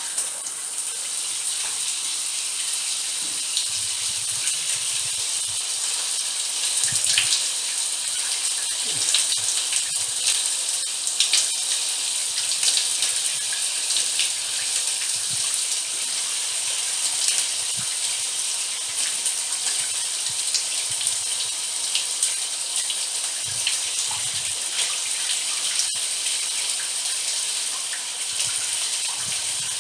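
Shower running: a steady hiss of spraying water, dotted with small splashes and drips.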